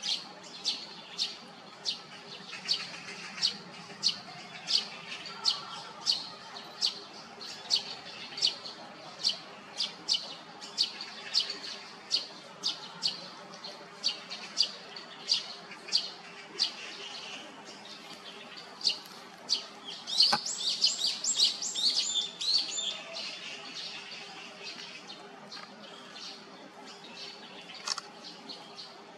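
Great spotted woodpeckers calling at a nest with young: sharp, high calls repeated about twice a second. About two-thirds of the way through, a louder burst of rapid chattering calls.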